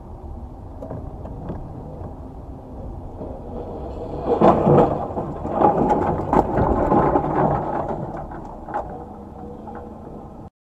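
Car driving, heard from a dashcam inside the cabin: a low rumble of engine and tyres on a rough road, growing louder through the middle with several sharp knocks and bumps.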